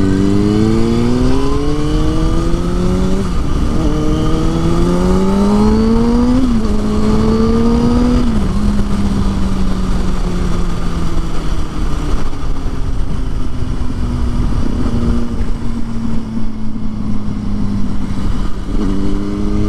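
Sport motorcycle engine accelerating hard through the gears: the engine note climbs and drops three times as it shifts up, then holds a steady, slowly falling cruising note. The note jumps up again near the end. Wind rush runs underneath throughout.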